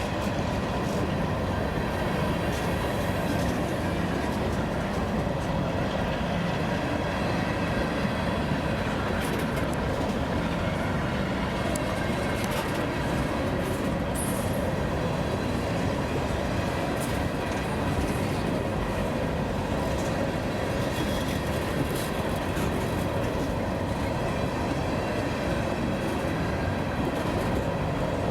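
Freight train rolling past steadily: wheels running on the rails, with scattered faint clicks.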